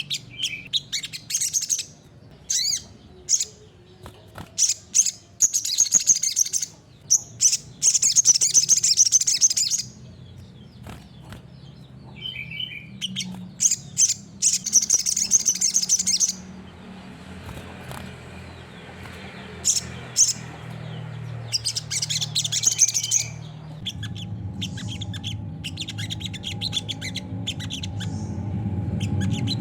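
A sunbird (sogok ontong sriganti) calling in repeated bursts of rapid, high-pitched chirps and trills, with short pauses between bursts. A low steady hum grows louder near the end.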